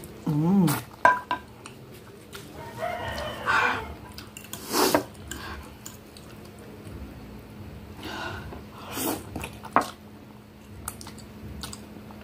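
Someone eating instant noodle soup: slurps of noodles and a metal fork scraping and clicking against a glass dish, with a short hummed 'mm' at the start.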